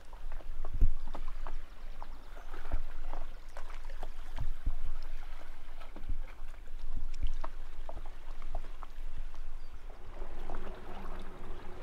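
Water splashing and slapping around a small boat, with irregular knocks and clicks against the hull.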